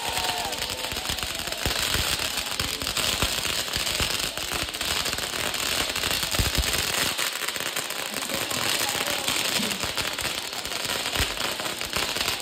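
Firecrackers packed inside a burning Ravan effigy going off in a rapid, continuous crackle of overlapping sharp pops and bangs.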